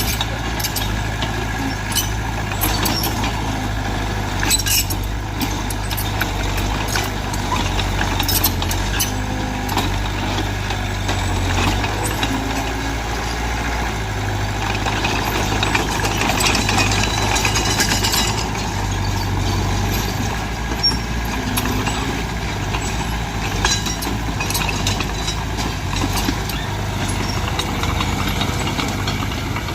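Heavy diesel earthmoving machinery running steadily with a low engine drone, its pitch shifting slightly as the load changes. Scattered short metallic clinks and knocks sound throughout.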